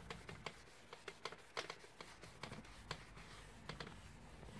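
Faint sounds of a cloth rubbing along a ski base, cleaning off leftover climbing-skin glue: soft rustling with small, irregular ticks and taps.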